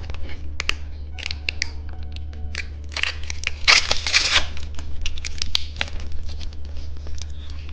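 Plastic candy wrapper being handled and opened: scattered crinkles, clicks and snips, with a louder stretch of rustling and tearing about three to four seconds in.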